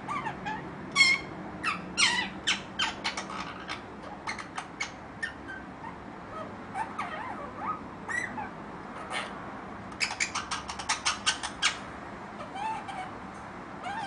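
Young ringneck parakeet, five months old, chattering and mumbling as it practises sounds: sharp clicks and short squawks with a few quick rising and falling whistles, and a fast run of clicks about ten seconds in.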